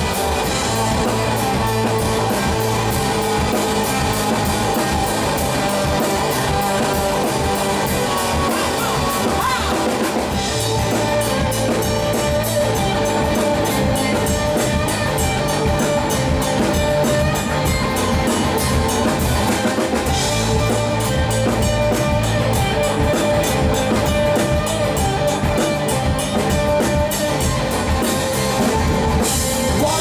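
Live rock band playing: drum kit, electric bass, and electric and acoustic guitars, steady and dense.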